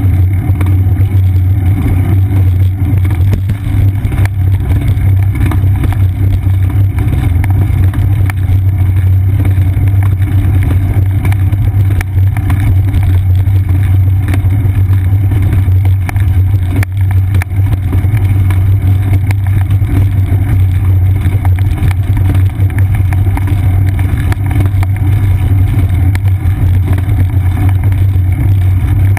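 Steady, loud low rumble of wind buffeting and road vibration picked up by a seat-post-mounted GoPro Hero 2 on a moving bicycle.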